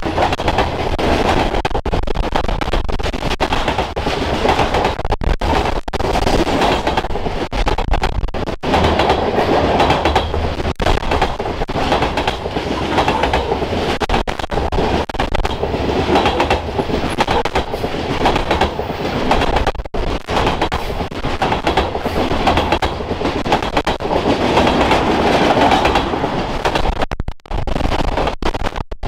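Norfolk Southern freight train's covered hoppers and then autorack cars rolling past close by: a loud, steady rumble of steel wheels on rail with repeated clacking as the wheels pass over the rail joints.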